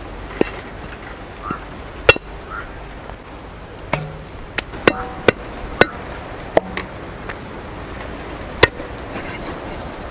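Heavy curved chopper cutting goat meat on the bone into pieces on a wooden stump block: about nine sharp chops at irregular intervals, a few with a brief metallic ring from the blade.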